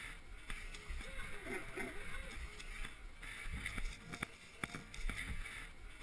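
Background music with a repeating pattern and a pitched, voice-like melody.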